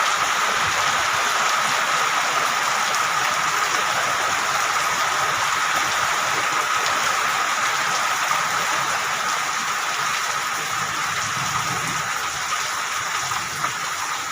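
Heavy rain drumming on a corrugated zinc roof, a dense, steady hiss of drops.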